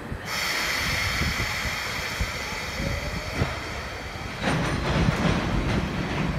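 EF65 electric locomotive starting a freight train: a steady hiss sets in suddenly just after the start. About four and a half seconds in, a heavier rumble with clanks begins as the train starts to move.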